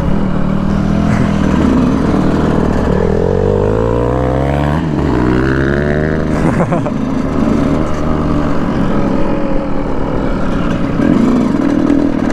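Dirt bike engines running close by, revving up and down several times, with the revs climbing and falling again around the middle.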